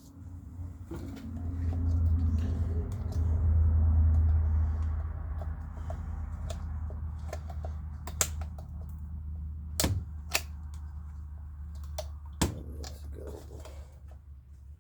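A low steady hum that swells about a second in and then slowly eases, with a few sharp clicks and knocks in the second half as a cut-down plastic bottle is handled and test-fitted against a chainsaw.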